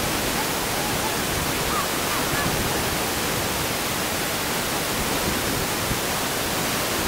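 Steady rushing wind noise on the camera microphone, with a few faint distant calls from the pitch.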